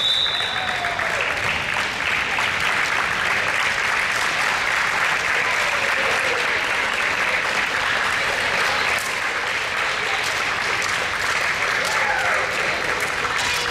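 Crowd applauding steadily, with a few voices calling out and a high steady tone in the first second.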